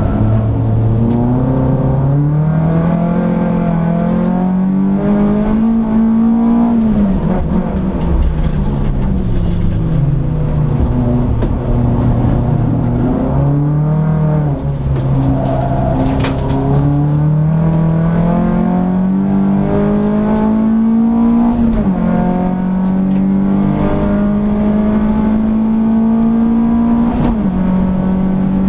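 Peugeot 206 S16's 2.0-litre 16-valve four-cylinder engine heard from inside the cabin on track, pulling hard with its pitch climbing and then dropping sharply at each gearchange. About a third of the way in it falls away for a few seconds as the car slows, then climbs again.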